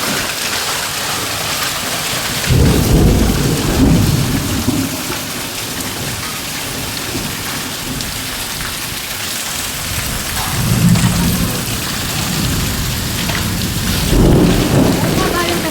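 Rain and hail pouring down steadily in a thunderstorm, with three low rumbles of thunder: about three seconds in, around eleven seconds, and near the end.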